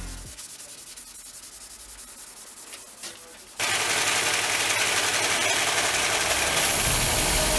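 Faint rubbing of sanding on the sword blade, then about three and a half seconds in a loud, steady power-tool noise cuts in abruptly.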